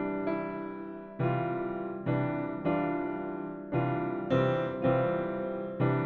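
Piano music: notes and chords struck every half second to a second, each ringing and fading before the next.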